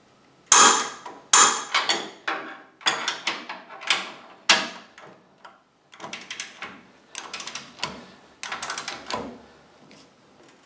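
Torque wrench and a backing wrench tightening the upper control arm cross-shaft bolts to 60 foot-pounds: a series of short metallic ratcheting clicks and clanks in quick bursts, with a brief pause a little past halfway.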